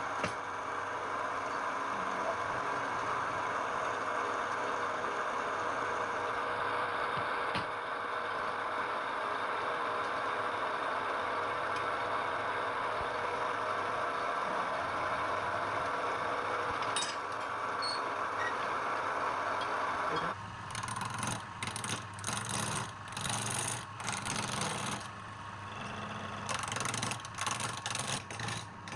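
Wood lathe running with a turning tool cutting the spinning wood in one steady, continuous cut; about two-thirds of the way through it changes to short, irregular, broken cuts.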